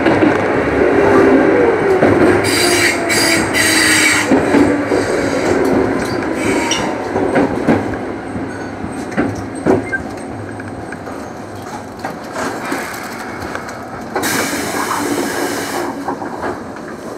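Keikyu 2000 series electric train slowing into a station and stopping: the motor whine falls in pitch, wheels click over the rails, and there are brief squeals from the wheels and brakes. Near the end comes a burst of hiss.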